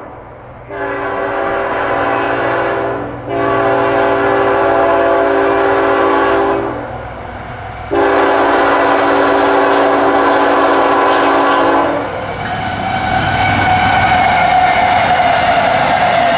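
CSX freight locomotive's air horn sounding three long blasts for a grade crossing. About twelve seconds in, the horn stops and the lead locomotives pass close by, with engine and wheel noise getting louder.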